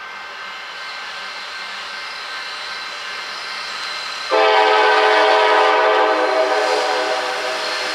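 An approaching freight train's noise grows steadily louder. About four seconds in, the locomotive's air horn sounds one long blast of several tones at once, lasting about three and a half seconds as the train nears the grade crossing.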